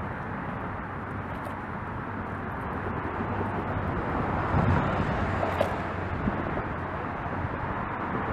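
Steady outdoor background rumble of distant road traffic, swelling slightly around the middle, with one faint click a little past halfway.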